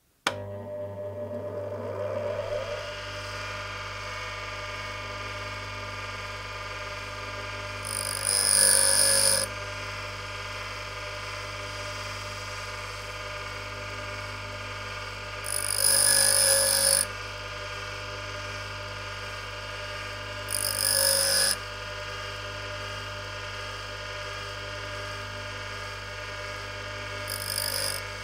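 Bench grinder starting up and then running with a steady hum. Four times a steel twist drill bit's tip is pressed to the white wheel, each a grinding rasp of about a second: the drill point being sharpened by straight grinding.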